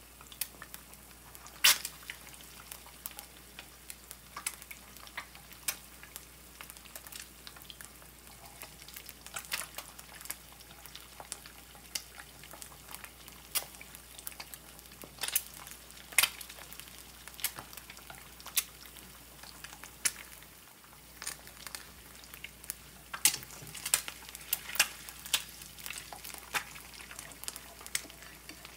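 Eggs frying in oil in a nonstick pan: a steady sizzle broken by frequent sharp crackles and pops.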